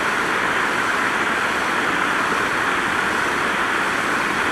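Water spilling over a low weir into a river pool: a steady, even rush.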